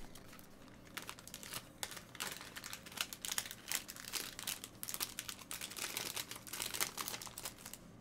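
Faint, irregular crinkling and crackling of a card pack wrapper being handled.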